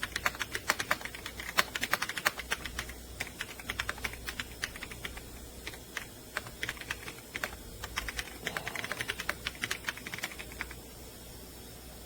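Fast typing on a Logitech Alto Keys K98M mechanical keyboard: rapid runs of key clicks with a brief pause about halfway through. The clicks stop shortly before the end.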